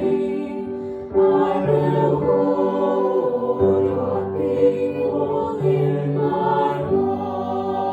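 Slow church music of long held chords. The harmony and bass shift about a second in, again near the middle, and once more near the end.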